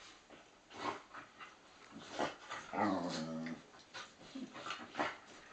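Two dogs play-fighting with open mouths: short huffing breaths and play growls, with one long grumble that drops in pitch about halfway through.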